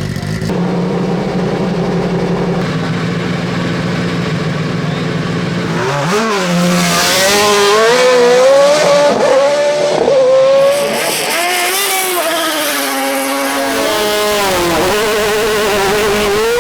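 Hill-climb race car engine held at steady revs on the start line, then launching about six seconds in and accelerating hard, its pitch rising and dropping through quick gear changes.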